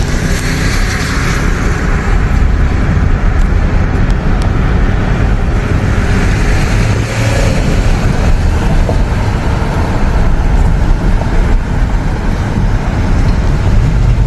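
Loud, steady low rumble of a car driving along a highway.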